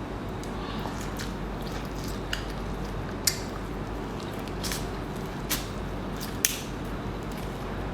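Close-up eating sounds of someone chewing a sauce-dipped king crab leg: short wet smacking clicks about once a second, over a steady low hum.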